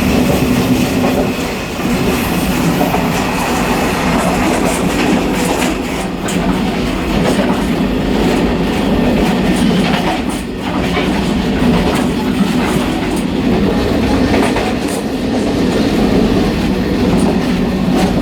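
A moving train heard from inside the gangway where two coupled trainsets join: a loud, steady rumble and rattle, with scattered clacks as the wheels pass over the rail joints.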